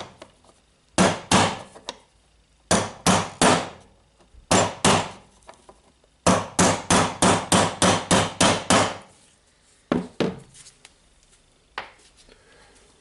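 Hammer striking a socket to drive a ball bearing into an angle grinder, hitting the bearing's outer ring. The blows come in short groups of two to four, then a fast run of about ten blows in the middle, then two lighter single taps near the end, each a sharp metallic knock with a brief ring.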